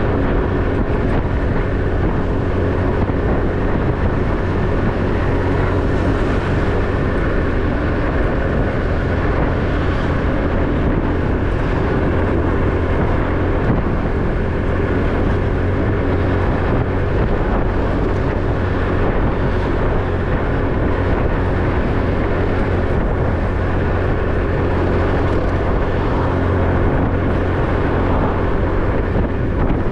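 Motorbike engine running at a steady cruise, with road and wind noise from riding.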